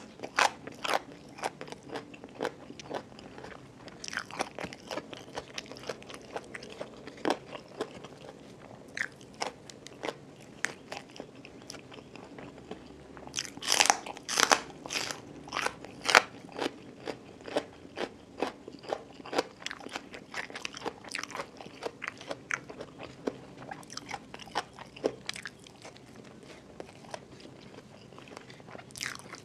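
Close-miked crunching and chewing of raw, crisp vegetables, including small Thai bitter gourd, bite after bite. The loudest, densest run of crunches comes a little before halfway through.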